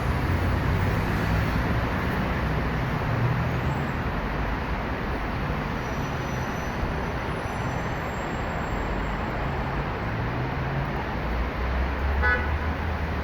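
City road traffic: a steady wash of engines and tyres, with the low engine note shifting as vehicles pass. A short pitched beep sounds about twelve seconds in.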